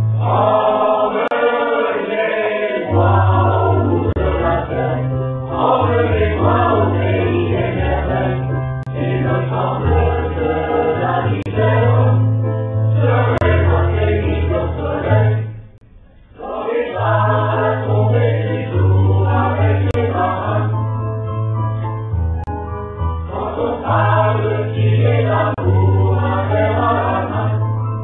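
Choral music: a choir singing over sustained low bass notes, with a brief pause about sixteen seconds in.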